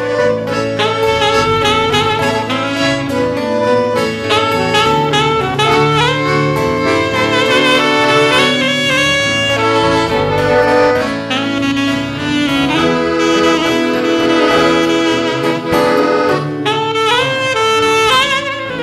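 Live saxophone solo over strummed acoustic guitars, an instrumental break in a blues-style folk song.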